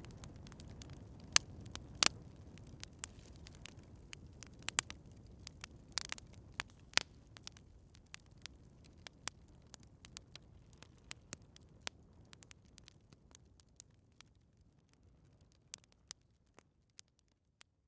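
Wood campfire crackling, with irregular sharp pops and snaps over a low rumble of burning, the pops thinning out and the sound fading away near the end.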